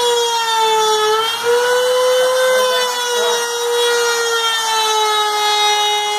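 Makita router spindle on a CNC machine, whining at a high steady pitch as its bit cuts a letter outline through a wooden board. The pitch sags a little as the cut loads the motor, about a second in and again from about three seconds on.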